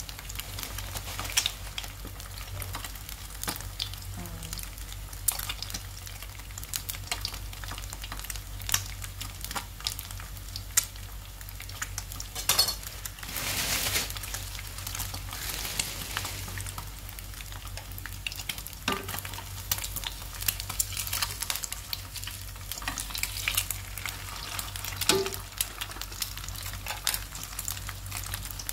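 Egg frying in oil in a non-stick pan, sizzling with a steady crackle of small pops and a louder stretch about thirteen seconds in. A steady low hum runs underneath.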